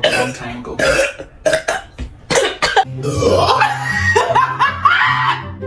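A quick string of short, abrupt burps, set off by gulping a carbonated soft drink (Sprite) fast. About three seconds in, music with a steady low note and a melodic voice takes over.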